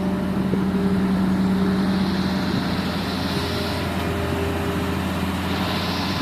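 Heavy diesel engine of an excavator running steadily, with a hiss that swells about two seconds in and again near the end.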